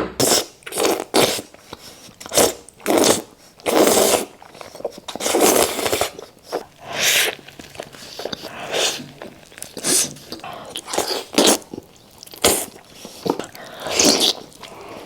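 Close-miked eating of spicy instant noodles: a run of short slurps, bites and chewing noises, roughly one or two a second.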